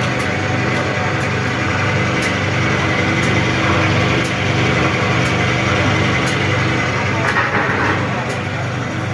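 Soap-making mixer machine running steadily with a loud motor hum, and a faint tick about once a second.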